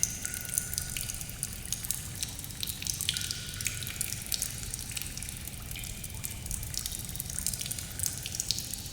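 Water dripping in a cave: irregular drops falling into pools, some ringing with short pitched plinks, over a low steady rumble.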